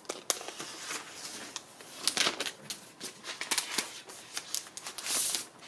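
Clear plastic protective wrap on a new iPad Pro crinkling and rustling as the tablet is handled and unwrapped. There are scattered sharp crackles, and a longer hiss about five seconds in.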